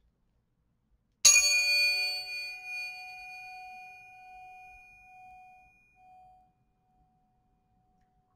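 Metal tuning forks struck once, with a bright clanging attack of high overtones. One clear steady tone rings on and fades away over about five seconds.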